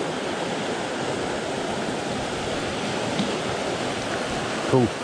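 Mountain trout stream rushing over rocks and a small cascade: a steady, even rush of water.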